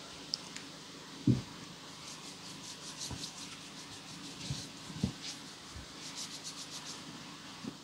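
Quiet handling noises at the altar as the priest works with the hosts and vessels: rustling and short runs of fine crisp ticks, a few soft knocks, and one louder thump about a second in.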